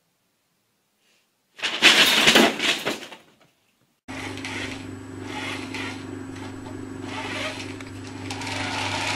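About two seconds in, a paper bag crackles and rustles in a loud burst lasting a little over a second. After a short silence, a steady low hum with hiss runs on.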